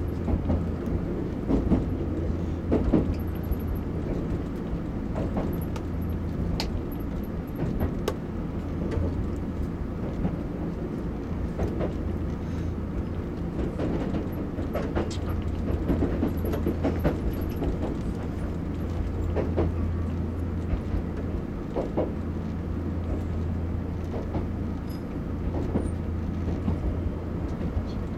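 Electric limited-express train running, heard from the cab: a steady low hum and rumble with irregular knocks and clicks from the wheels on the track.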